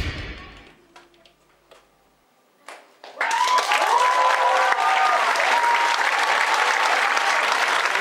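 The dance music ends and dies away, then after a brief near silence a theatre audience breaks into applause about three seconds in, with cheers and whoops over the clapping.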